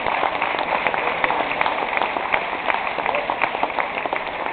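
Crowd noise: many voices mixed together, with scattered clapping throughout.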